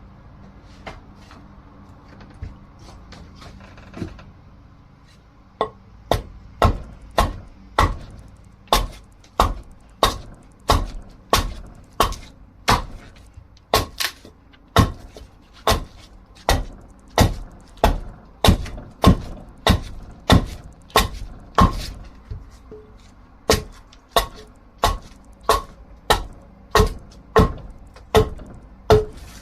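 Dried wood being hewn with a hatchet or axe to shape an axe handle: a steady run of sharp chopping strikes, a little under two a second, with one short pause about two-thirds through. A few faint knocks come before the chopping starts.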